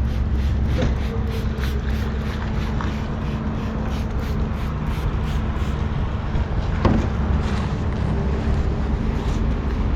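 Steady low vehicle rumble with a faint constant hum, a run of quick regular scuffing strokes in the first half, and one sharp knock about seven seconds in.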